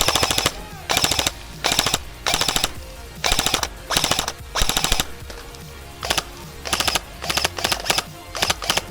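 Airsoft gun firing in about fourteen short bursts of rapid clicking shots, some a fraction of a second apart, the longer bursts in the first five seconds and quicker, shorter ones after.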